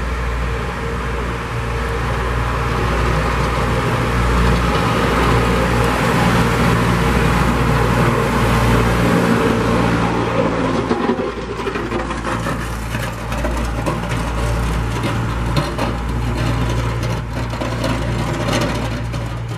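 Tractor engine running steadily under load as the tractor plows snow with a front-mounted blade.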